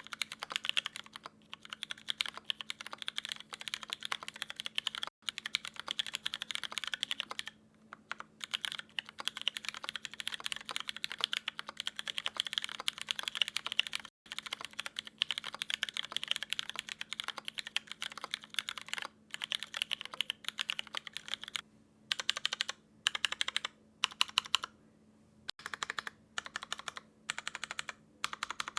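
Mechanical keyboard with tactile Cherry MX Brown switches in an aluminium plate, no foam, and KKB Skidata Neo keycaps, typed on steadily at a fast pace. About three-quarters of the way through, the typing breaks into short bursts with brief pauses between them.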